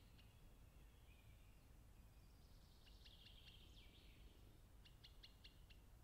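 Near silence with faint high-pitched calls of a small songbird: a short warbled phrase about halfway through and a quick run of four or five sharp ticks near the end, over a low steady background noise.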